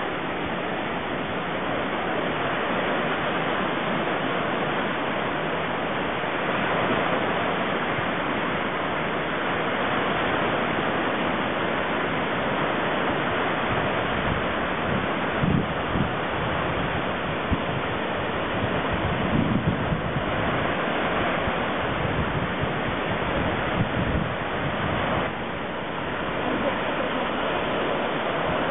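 Small waves breaking and washing up on a sandy beach, a steady rushing surf noise, with wind on the microphone and a few brief low bumps.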